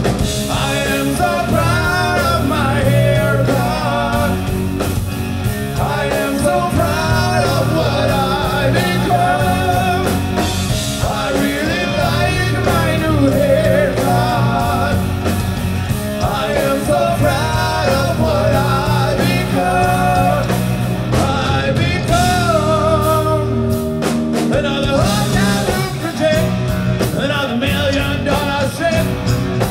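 Rock band playing live and loud: electric guitars, bass and drums with singing over them.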